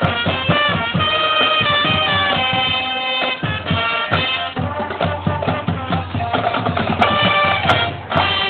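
Marching band playing: brass holding chords that change every second or so over a steady beat from the drumline.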